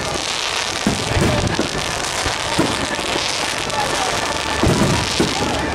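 Niagara fireworks, a long curtain of falling sparks, hissing and crackling steadily like heavy rain, with aerial shells bursting in dull booms several times.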